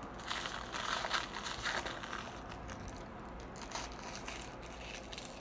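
Small plastic toy wrappers crinkling and rustling as they are handled and opened, in irregular flurries, busiest in the first two seconds and again briefly near the four-second mark.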